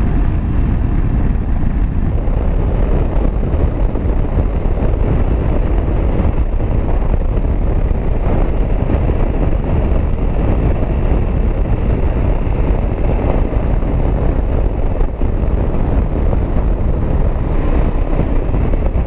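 Steady rush of wind on the microphone while riding a 2019 KTM 790 Adventure at road speed, with its 799cc LC8c parallel-twin engine running underneath.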